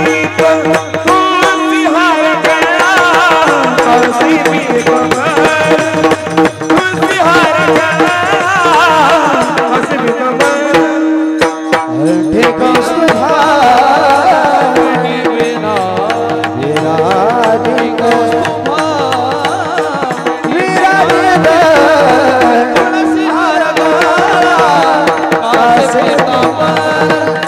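Warkari kirtan music: a man singing a heavily ornamented devotional melody over a steady drone, accompanied by mridang drumming. The voice drops out briefly about halfway through, then returns with a rising glide.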